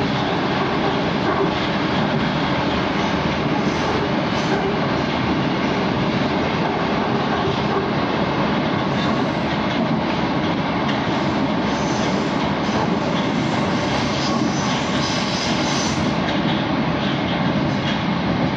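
Moskva-2020 metro train running between stations, heard from inside the car: a steady, loud rumble of wheels and motors on the rails, with a slightly sharper hiss for a few seconds past the middle.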